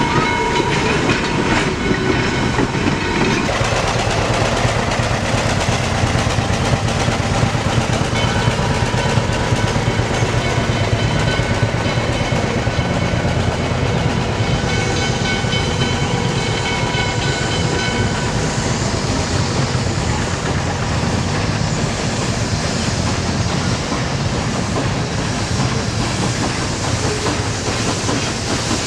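Pennsylvania Railroad 643's steam train running on the rails. First its cars' wheels clatter past close by. After an abrupt change about three and a half seconds in, the train is heard further off as a steady low rumble, with a held chord of several high tones for about ten seconds in the middle.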